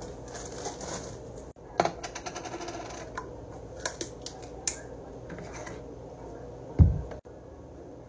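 Quick clicking and crackling of a plastic peanut butter jar lid being twisted open, then one heavy thud as the jar is set down on a wooden cutting board near the end.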